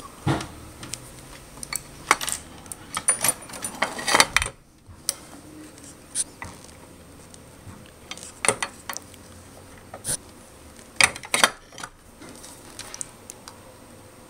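Irregular clicks, taps and light clatter of multimeter test probes and a circuit board being handled on a workbench, coming in short clusters every second or two.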